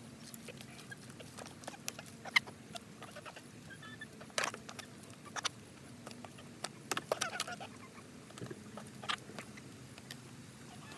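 Hens pecking food out of a disposable aluminium foil pan: irregular sharp taps and clicks of beaks on the foil and on each other, with a few short clucks among them.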